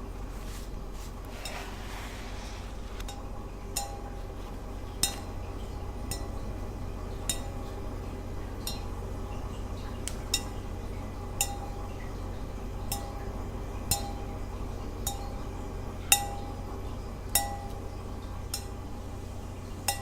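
A hard object tapped lightly about once a second, each tap a short, bright ringing clink; the loudest comes about three-quarters of the way through. A steady low hum runs underneath.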